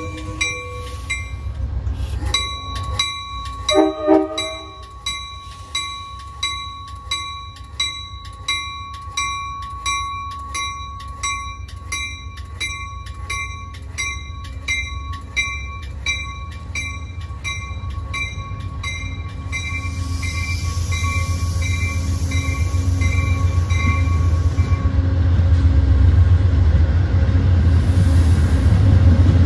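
A CT Rail commuter train's bell ringing steadily, a bit more than once a second, with a short horn blast about four seconds in. The bell dies away after about 25 seconds while the train's low diesel rumble grows steadily louder toward the end.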